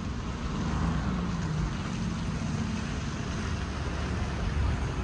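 Street traffic in snow: a city bus's engine drone as the bus approaches along the slushy road, over a steady hiss of tyres and wind.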